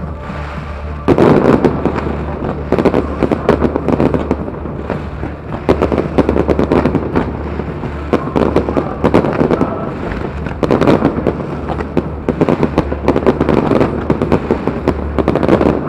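Aerial fireworks display: volleys of rockets and shells going off in a dense barrage of bangs and crackles. It starts about a second in and comes in repeated waves.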